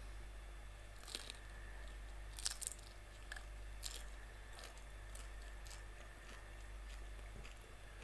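Chewing and crunching a whole shell-on shrimp: the hard shell cracks in irregular sharp crackles, roughly one every half second to a second.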